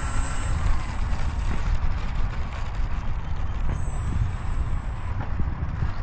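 64mm electric ducted fan of a model jet running at low taxi throttle: a thin high whine that fades out after about a second and a half and comes back around the middle. A steady low rumble lies under it throughout.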